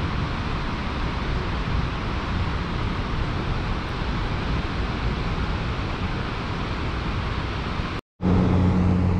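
Steady rush of water pouring from the dam's turbine outflow and spillway gates. It cuts out briefly near the end, and a steady low hum follows.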